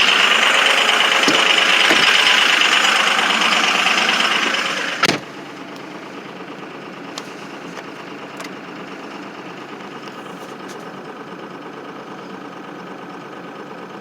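Ford 6.0 Powerstroke V8 turbodiesel running on high idle after a 17°F cold start, misfiring on two bad injectors (1 and 5). About five seconds in a door shuts with a thump, and the engine is then heard quieter and muffled from inside the cab.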